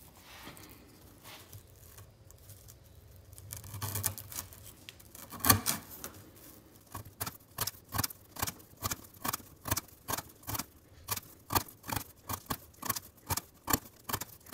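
Holtzman's Gorilla Survival neck knife slicing through half-inch twisted sisal rope on a wooden board. It is fairly quiet for the first few seconds, with one sharp crunch in the middle, then a steady run of short crisp cuts about two a second.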